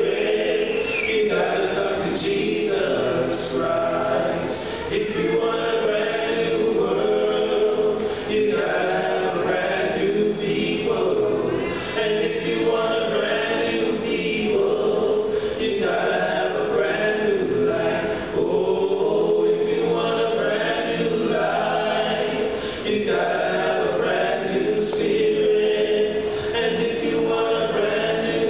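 Five-man male vocal group singing in close harmony into handheld microphones, unaccompanied, the voices amplified through the church sound system.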